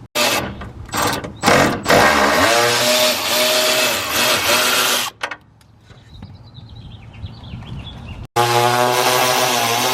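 Power tool running in bursts, backing out the bolts that hold a truck's front valance and brackets: a few short pulls of the trigger, then a run of about three seconds that rises in pitch as it starts, a pause, and another long run near the end.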